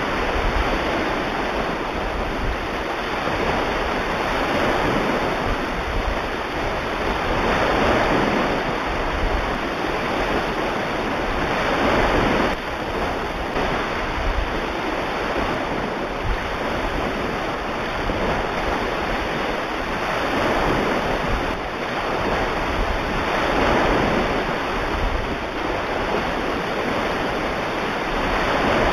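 Recorded ocean surf: a steady wash of waves that swells and falls back about every four seconds.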